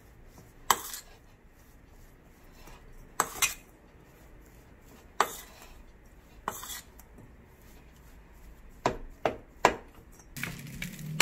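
Metal spoon mixing mashed boiled potato and starch in a stainless steel bowl, with sharp clinks of the spoon against the bowl every second or two. Three clinks come in quick succession near the end.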